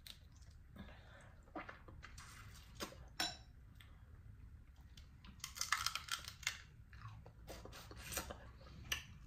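Dungeness crab shell cracking and crunching as the legs are broken apart by hand, with chewing and sucking at the meat. Irregular short snaps, most of them in a cluster about halfway through.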